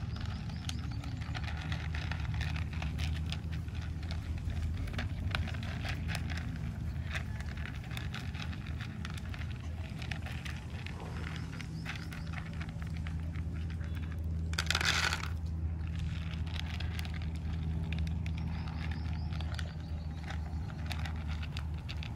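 Puppies crunching dry kibble from a plastic bowl: a steady run of small crunches and clicks, with one short rushing burst about fifteen seconds in.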